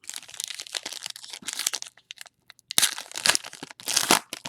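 Foil trading-card pack wrapper crinkling as it is handled and crumpled: about two seconds of steady crackle, then two louder crinkles near the end.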